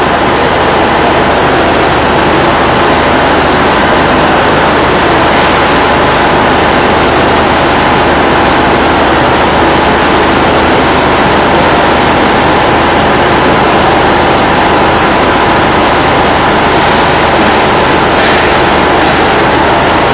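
Loud, steady industrial machinery noise with a low hum underneath, unbroken throughout.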